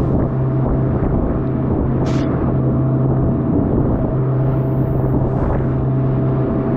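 Motor of a small open boat running steadily at speed, a constant low hum, with water rushing and splashing against the hull and wind on the microphone. A brief hiss of spray about two seconds in.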